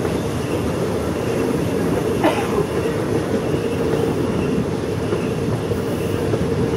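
Passenger train running along the line, heard from inside a carriage: a steady low running noise of wheels on rail, with one short sharp noise a little over two seconds in.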